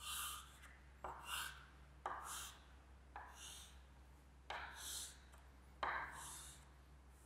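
Chalk drawing straight lines on a chalkboard: six faint separate strokes about a second apart, each a short scrape that starts sharply.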